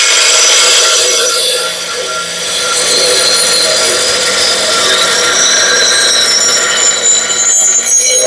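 A steel lawnmower blade held against a spinning grinding wheel, grinding its cutting edge sharp. It makes a loud, steady, high-pitched grinding whine with a slight dip about two seconds in.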